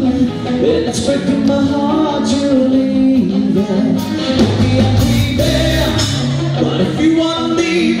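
A live rock band playing: drum kit with cymbals, electric bass and electric guitar, with a voice singing over them.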